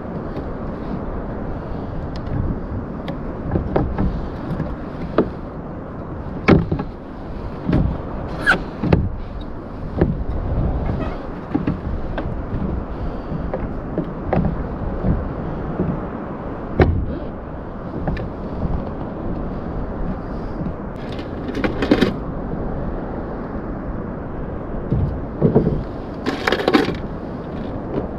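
Kayak on open water: a steady rush of wind and water with irregular knocks and thumps against the hull, and two brief rattling bursts about 21 and 26 seconds in.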